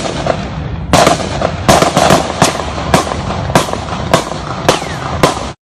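A string of gunshots in an ongoing exchange of fire: about nine sharp cracks at uneven intervals of roughly half a second, each with a short echo. A low rumble runs beneath, and the audio drops out briefly near the end.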